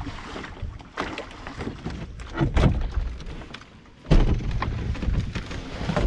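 Knocks and thunks of a canoe being handled and hoisted onto a portager's shoulders, with heavy low handling noise from about four seconds in.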